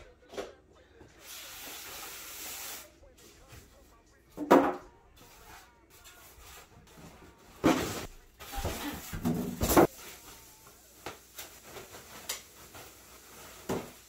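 A large monitor being unpacked from its cardboard box: a sliding scrape, then several sharp knocks as the foam packing blocks and box are handled, with a plastic bag rustling.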